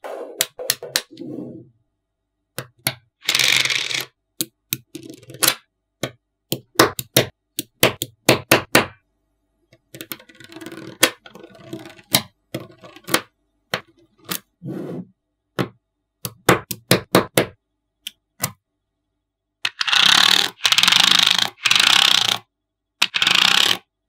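Small magnetic balls clicking and snapping together in quick clusters as they are placed one after another, with a few longer scraping stretches near the end as balls are slid or rolled over a hard surface.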